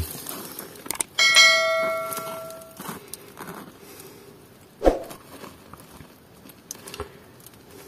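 A click followed by a single bell chime that rings out and fades over about a second and a half: the notification-bell sound effect of a subscribe-button animation. A single knock sounds about five seconds in.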